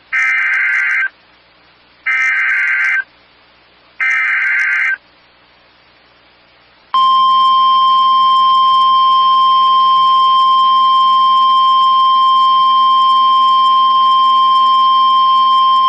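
Emergency Alert System activation on NOAA Weather Radio: three one-second bursts of SAME header data tones, each two seconds apart, then after a short pause the 1050 Hz warning alarm tone, one steady high beep held for about nine seconds. It signals that a warning message, here a flash flood warning, follows.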